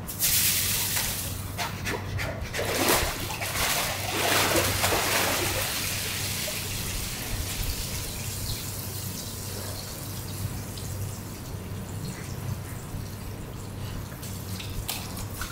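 Water splashing and streaming off an adult polar bear as she hauls herself out of the pool onto the rocks. It settles after about six seconds into trickling and dripping, over a steady low hum.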